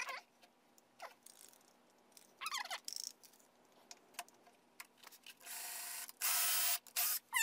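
Cordless drill boring a 3/16-inch pilot hole through a clamped drill-guide block into plywood, in fast-forwarded footage. The drill runs in three short stretches in the second half, the middle one the loudest.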